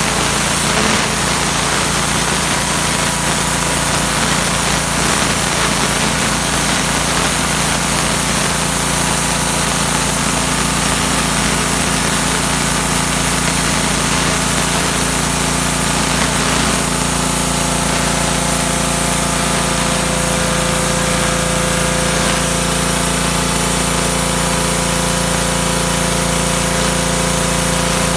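Pressure washer running steadily, its motor drone under the constant hiss of the water jet blasting paint off a concrete court.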